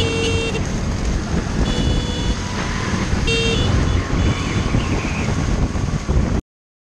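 Motor scooter riding along a road: engine and road noise with heavy wind rumble on the microphone. Short horn beeps sound just after the start, about two seconds in, and about three and a half seconds in. The sound cuts off suddenly shortly before the end.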